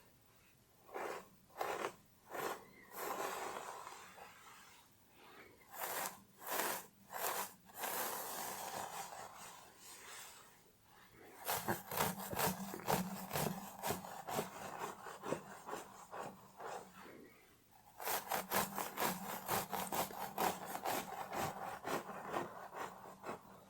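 Scratching through hair on a scalp: a few separate slow strokes at first, then, about halfway in, a quick run of short strokes several a second, pausing briefly and starting again.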